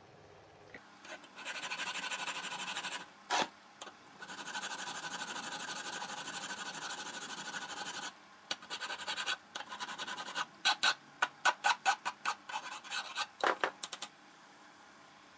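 Hand file rasping across a metal part clamped in a small vise to clean it up: two long continuous runs of filing, then a string of short separate strokes, with a sharp knock between the runs and another near the end.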